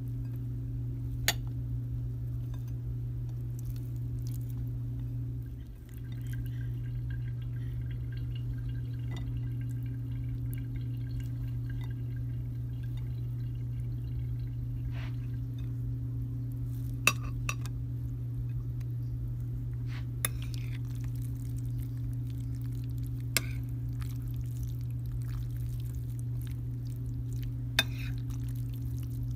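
A steady low hum runs throughout and dips briefly about six seconds in. Five or six sharp clinks of a metal spoon against a ceramic plate are scattered through it.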